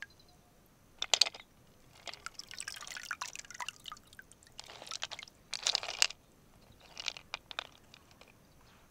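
Water dripping and splashing in short, irregular bursts, with a couple of sharp clicks about a second in.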